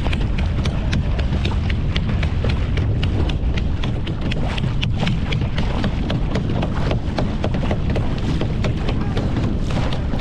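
Wind rumbling on the microphone at the bow of a moving boat, over a rapid, irregular patter of sharp clicks and slaps from water splashing against the hull.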